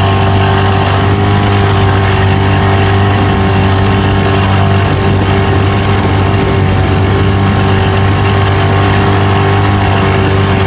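Motorboat engine running steadily at cruising speed, a constant drone with no change in pitch, over the rush of water from the wake.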